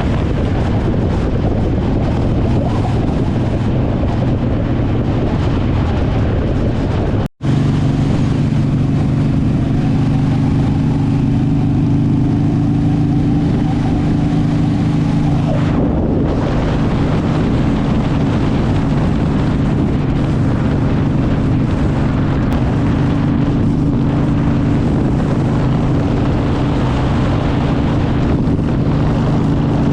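Motorcycle engine running at a steady cruise with heavy wind noise on the microphone, heard while riding. The sound drops out briefly about seven seconds in, then a steady low engine drone carries on under the wind.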